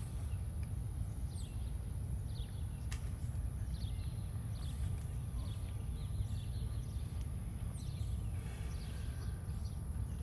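Outdoor ambience between pitches: small birds chirping in short, sweeping calls over a steady low rumble, with a single faint click about three seconds in.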